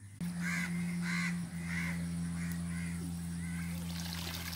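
Crows cawing repeatedly over a steady low hum. Near the end, water splashes and pours off a cloth net lifted out of a muddy puddle.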